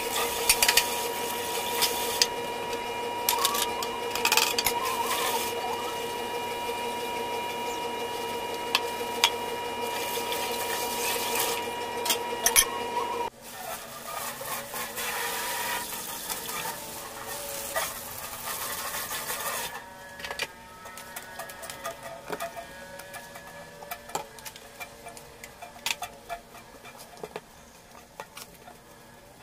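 A kitchen tap runs into a stainless-steel sink over a steady hum while a pan is rinsed, with sharp clinks and knocks of cookware. About 13 seconds in the hum and the louder flow stop suddenly, leaving quieter water splashing and scattered clinks.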